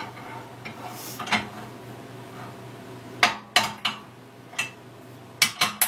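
Metal clinking and knocking, a string of sharp separate strikes as the steel vise and workpiece are handled on the drill press table, over a steady low hum.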